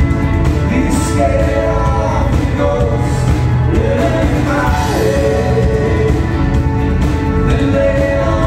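Live indie rock band playing: electric guitars, bass guitar and drum kit with cymbals, and a lead vocal singing long held notes that slide between pitches over the band.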